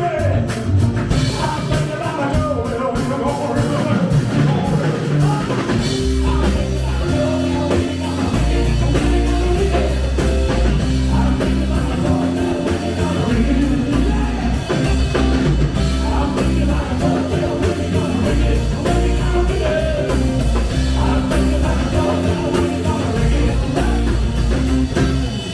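Live rock band playing a song with a singer. The low end gets heavier about six seconds in and the music keeps a steady beat.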